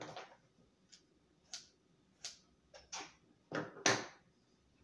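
Scattered short clicks and brief rustles of cotton fabric being handled and shifted at a sewing machine, about eight in all, the two loudest near the end.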